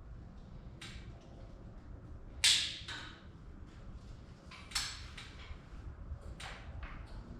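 A few sharp knocks and taps from hand work on the air line installation: a loud knock about two and a half seconds in, another just before five seconds, and smaller taps between them.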